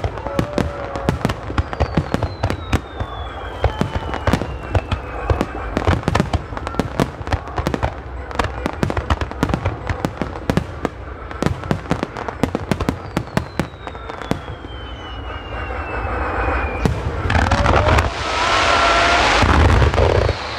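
Fireworks display: a dense run of sharp bangs and crackles from bursting shells, with two long falling whistles, building into a louder continuous rush of noise near the end.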